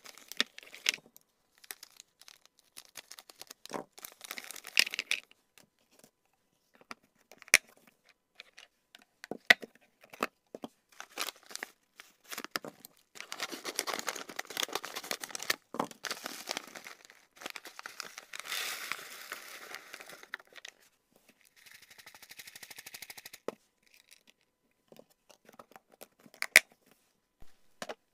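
Hands handling snack packaging: a thin plastic bag and a kraft-paper pouch crinkling and tearing in long rustling stretches, with sharp clicks and taps from clear plastic storage boxes and their lids.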